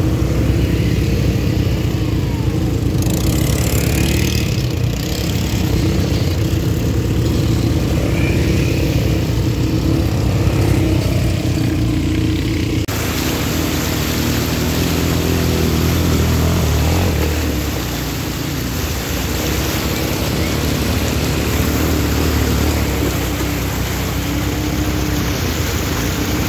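Several ATV quad-bike engines running and revving as the quads ride past. About halfway through the sound cuts to rushing stream water and splashing, with the quad engines still running under it as they drive through the shallow stream.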